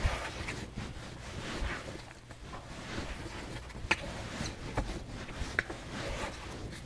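Hands kneading sticky bread dough on a floured pastry mat: soft, irregular pushing and squishing, with a few short slaps or clicks.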